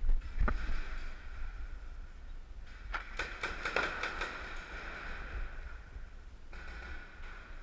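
A quick string of about seven sharp paintball marker shots, roughly five a second, about three seconds in, over a steady high hum. A single thump comes about half a second in.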